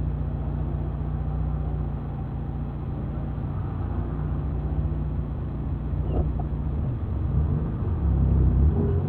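Car engine and road noise: a steady low hum with a running engine note that changes slightly near the end.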